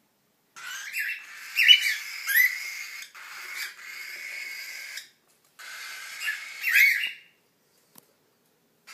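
Young cockatiel chicks giving harsh, raspy begging calls mixed with short rising whistles, a near-continuous chatter that stops shortly before the end.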